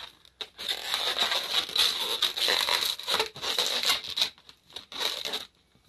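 Latex twisting balloons rubbing and squeaking against each other and the hands as they are twisted and handled, in a long stretch of about four seconds and then a shorter burst near the end.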